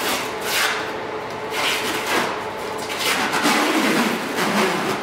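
Plastic cling film being pulled off its roll and stretched, crackling and rustling in repeated bursts.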